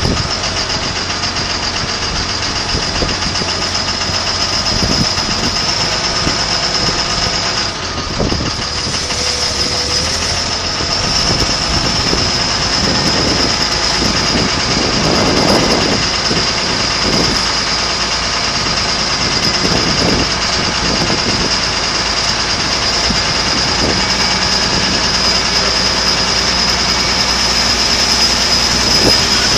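A heavy engine running steadily at idle, with a steady high-pitched whine over it and scattered knocks and clanks.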